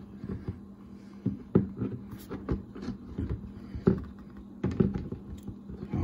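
Removable lid of a Bodega 80-quart portable fridge-freezer being worked loose from its knob-and-slit hinge by hand: irregular knocks, taps and clunks of the lid against the cabinet, a few of them sharper than the rest.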